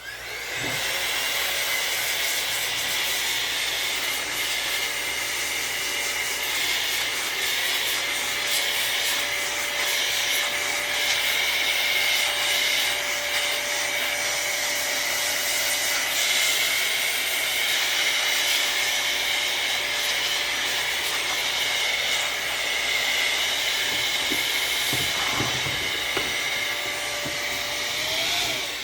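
Air blower running loud and steady, a rushing blast of air with a steady motor whine, blowing dust out of an opened laptop. It starts suddenly and, near the end, cuts off with the whine winding down.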